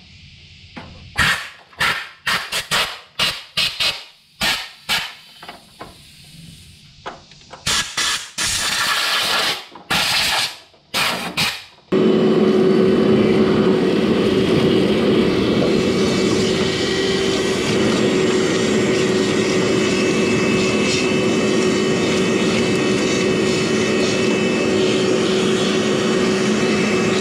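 Compressed-air blow gun fired in a quick series of short blasts, blowing debris off a truck engine. About twelve seconds in, a loud, steady machine noise with a low hum starts abruptly and keeps running.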